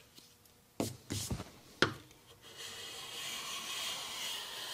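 A few short knocks, then a metal bench plane taking a shaving off a board in one steady stroke of about three seconds, the freshly sharpened, crowned blade cutting a test shaving.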